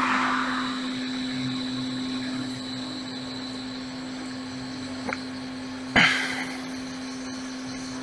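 Steady whir of a hot air rework station blowing air with a constant hum, while a capacitor is heated off a phone logic board. A small click about five seconds in, then a sharper, louder tick a second later.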